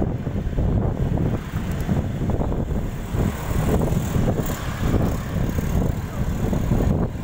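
Wind buffeting the microphone while travelling on a vehicle, a rumbling, gusty noise with the vehicle's road noise underneath.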